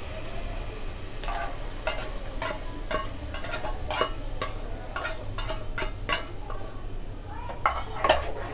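Metal spoon knocking and scraping paste out of a bowl into an aluminium cooking pot, then stirring it: a string of sharp clinks about twice a second, the loudest near the end, over a faint sizzle of masala frying in hot oil.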